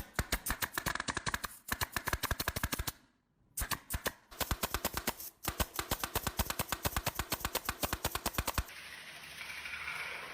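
Rapid, even clicking, about eight sharp clicks a second, with a short break about three seconds in; near the end the clicking stops and a softer steady hiss takes over.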